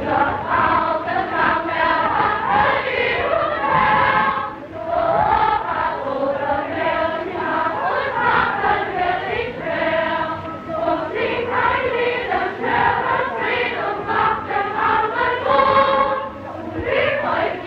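A choir singing a song together, in long held and sliding sung notes.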